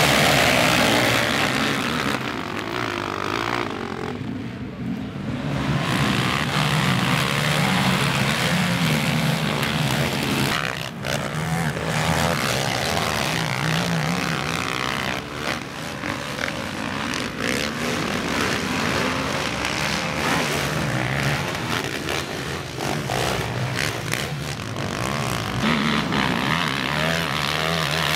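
Several racing quads (sport ATVs) at full throttle, their single-cylinder engines revving and changing pitch together in a dense, wavering drone. Loudest in the first couple of seconds as the pack passes close, then steady as the field spreads around the track.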